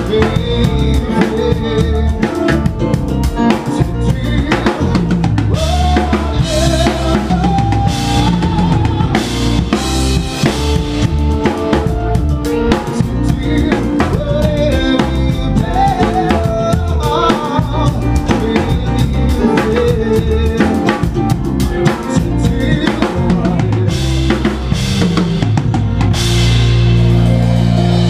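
Live rock band playing loud: a drum kit driving the beat with bass drum and snare, under electric bass and keyboards with a melodic line on top. About 26 seconds in the band moves into loud, sustained chords.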